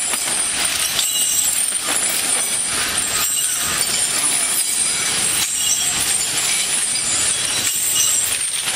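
Iron chains on an elephant's legs clinking and scraping on the road as it walks, irregular metallic chinks over a steady hiss.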